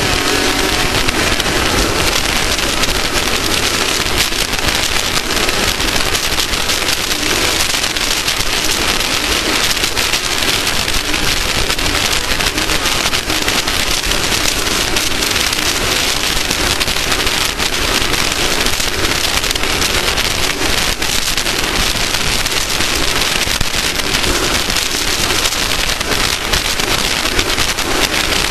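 Off-road race vehicle running at speed: a loud, steady rush of wind and driving noise with constant crackling, without a break.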